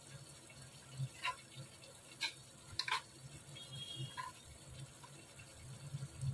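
Knife cutting through a block of fried paneer and clicking lightly against a stainless-steel plate, a handful of short ticks spread a second or so apart over a steady low hum.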